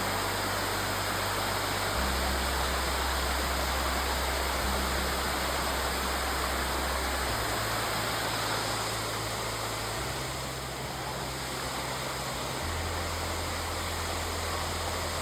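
Steady rush of flowing water, with a slow background music bed of low held notes that change every couple of seconds underneath.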